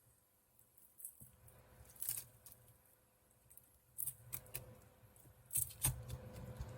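A few light clicks and taps of kitchen utensils being handled, the sharpest cluster near the end, over a faint low hum.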